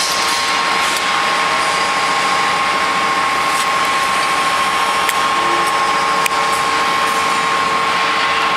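Steady drone of running factory machinery with a constant high whine, and two light clicks about five and six seconds in.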